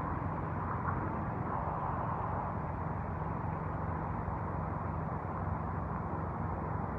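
Steady muffled rumbling noise with a faint low hum underneath, even in level throughout.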